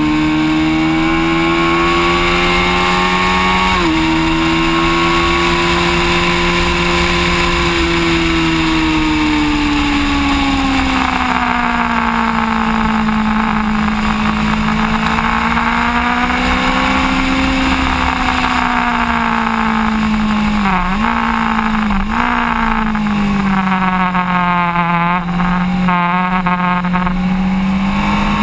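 Sportbike engine running hard at high revs at track speed, with wind rushing over the fork-mounted camera. The pitch drops suddenly about four seconds in at a gear change, then sinks and climbs through the corners, with two quick dips about three-quarters of the way through.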